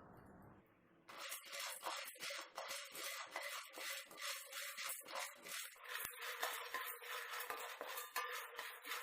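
Dry, irregular rasping and rustling from hand work with dry ingredients. It starts about a second in and goes in uneven strokes, as when roasted peanuts are rubbed to loosen their skins or jaggery is grated.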